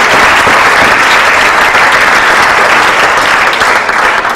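Audience applauding, loud and steady, dying away at the very end.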